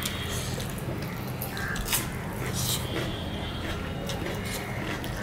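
Two people eating rice and curry by hand: fingers squishing and mixing the rice on plates, wet chewing and mouth smacks, with many small scattered clicks. A steady low hum runs underneath.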